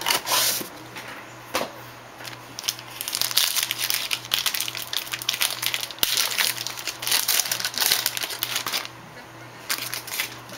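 Trading card pack wrapper crinkling and crackling as it is torn open and peeled back by hand. There are a few short crinkles at first, then continuous crackling for several seconds in the middle that eases off near the end.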